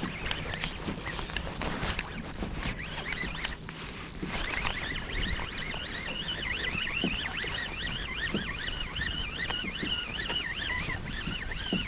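Fishing reel being cranked to bring in a hooked fish: a quick rising-and-falling whine that repeats over and over from about four seconds in, over steady wind and water noise.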